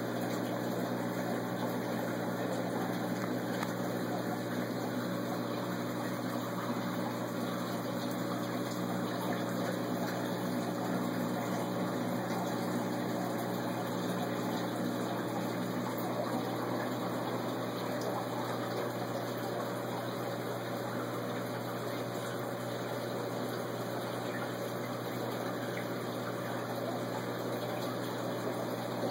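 Saltwater aquarium pumps running steadily: a low electric hum under a constant rush of circulating water.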